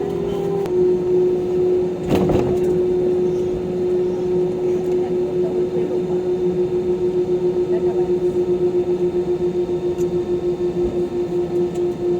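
Airbus A320-200 cabin noise: a steady engine rumble under a strong humming tone that steps down slightly in pitch a little under a second in and then pulses evenly several times a second. A single thump comes about two seconds in.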